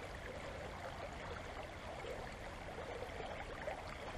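Shallow creek water running steadily over gravel and rocks, a soft, even rush.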